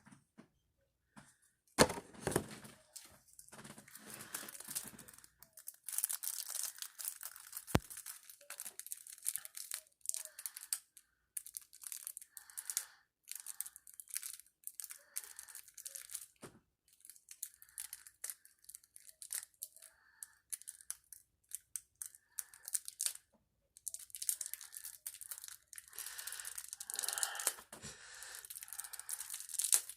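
Trading-card structure deck packaging being torn open and crinkled by hand: irregular tearing and rustling, with a couple of sharp clicks.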